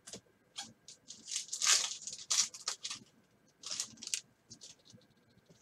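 Foil wrapper of a 2020 Certified football card pack being torn open and crinkled by hand, in a series of short rustling rips, loudest about two seconds in.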